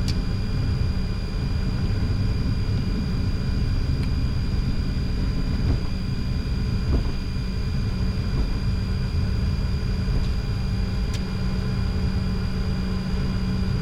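Steady cockpit noise of a Bombardier Challenger 604 taxiing: a low rumble from the aircraft rolling with its jet engines at idle, under a steady hum and a thin high whine.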